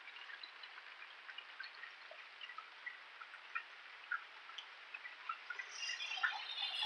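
Steady rain falling, with scattered drips and patters of drops close by. Near the end a louder hiss builds: a car's tyres on the flooded wet street.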